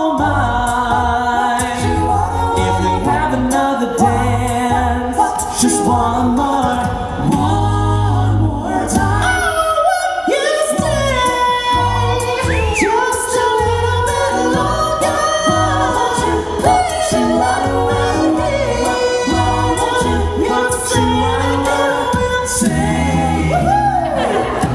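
All-male a cappella group singing into microphones: a lead voice over close backing harmonies and a deep sung bass line.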